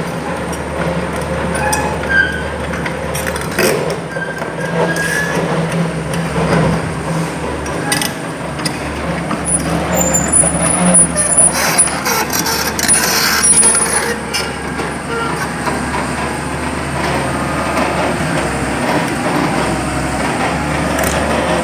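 Hitachi EX200-5 excavator's diesel engine running steadily, with occasional sharp clicks and knocks.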